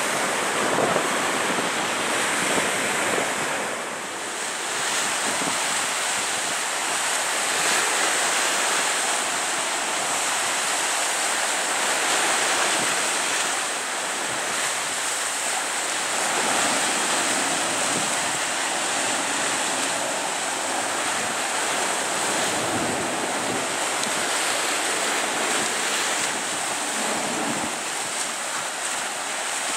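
Wind rushing across the microphone, with waves washing on the shore beneath it: a steady rush of noise with no distinct tones or knocks.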